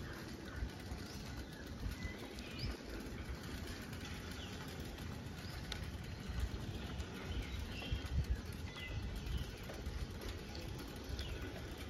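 Wind rumbling and buffeting on the microphone in uneven gusts, with scattered short bird chirps throughout.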